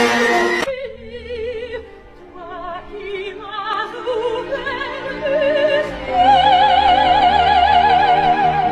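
Operatic-style singing with a strong vibrato: a run of short wavering notes, then a loud high note held from about six seconds in.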